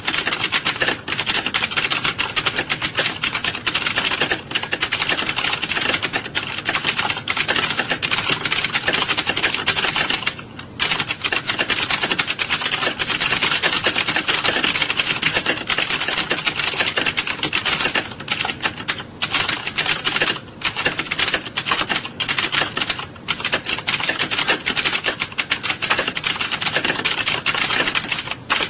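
Many people typing at once on computer keyboards in a typing class: a dense, continuous clatter of keystrokes, with brief lulls about ten and twenty seconds in.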